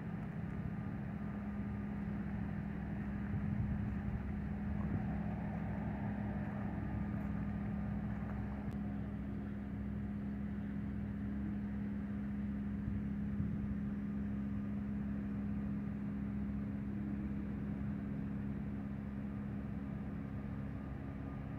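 Steady mechanical hum of idling machinery, holding one low pitch with a faint higher tone above it.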